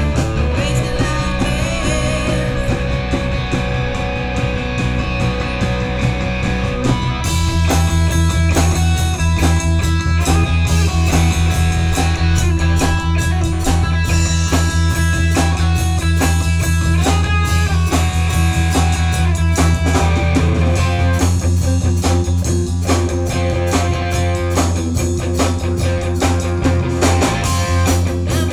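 Live rock band playing with electric guitar, bass guitar and drum kit. The fuller band, with heavy bass and steady drum hits, comes in about seven seconds in.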